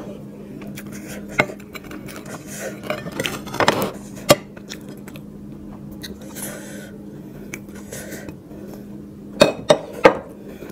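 Plates knocking and clinking against the table and each other as they are lifted and set down, with a few scattered sharp knocks and three loud ones close together near the end. A steady low hum runs underneath.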